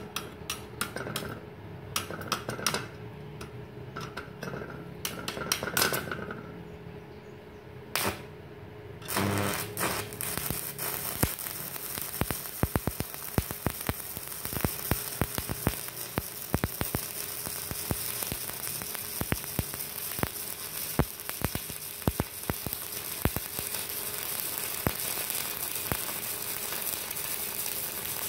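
Stick (SMAW) welding arc from an ES1200 inverter welder burning a 3.2 mm electrode. For the first nine seconds or so the arc catches only in short crackling spurts as the rod is struck on the plate. Then it holds and burns with a steady sizzling crackle and frequent sharp pops.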